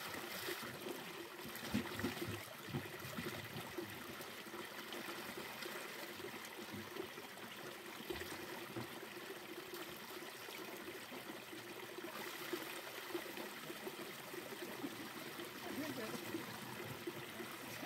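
Spring water trickling steadily from a small spout into a plastic jerrycan as it is filled, with a shallow stream running over stones.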